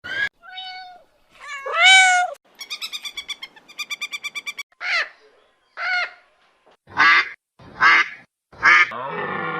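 A series of bird calls: short gliding calls, two fast rattling chatters, then single calls about a second apart, in the manner of a duck's or goose's calls.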